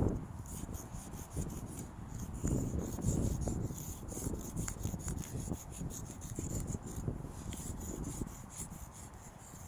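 Chalk scraping and rubbing across a rough surface in quick repeated strokes, with wind rumbling on the microphone.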